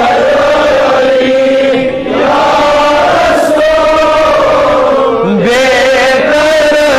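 A man chanting a Kashmiri naat, a devotional hymn in praise of the Prophet, in long held, wavering notes with ornamental turns, with a brief break about two seconds in.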